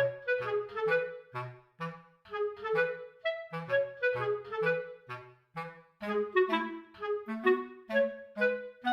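Background music: a bouncy tune of short, separate notes on a woodwind-like instrument over a bass line.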